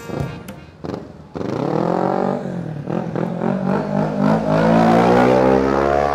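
A motor vehicle engine accelerating past, its pitch climbing, dropping back and climbing again as it shifts up through the gears.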